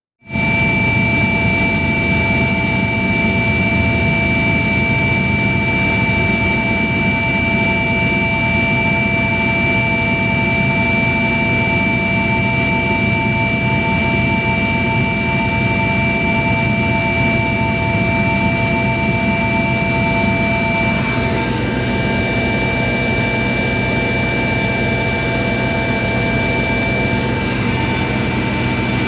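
Medical helicopter's turbine engine and rotor heard from inside the cabin: a loud, steady rumble with several high, steady whines. It cuts in suddenly, and one of the whines drops out about two-thirds of the way through.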